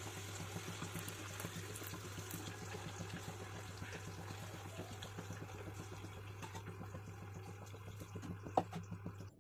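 Steady hissing noise over a low electrical hum, with faint scattered ticks and a sharper click near the end; the sound cuts off abruptly.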